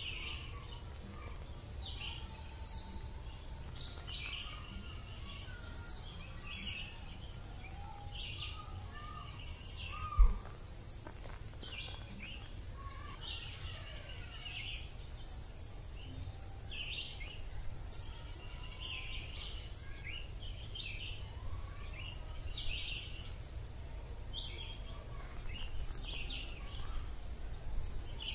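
Birds chirping and calling again and again over a steady low outdoor rumble and a faint steady high tone. A single sharp thump about ten seconds in is the loudest sound.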